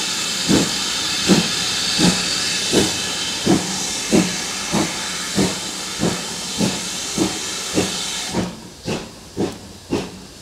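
Steam locomotive pulling away, its exhaust chuffs coming gradually faster over a steady hiss of steam that cuts off about eight seconds in.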